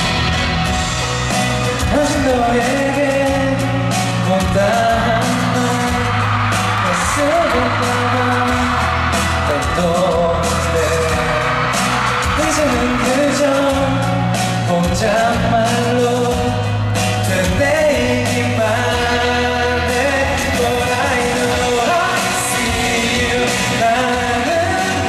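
A male singer sings a pop song live into a handheld microphone over musical accompaniment with a steady bass line.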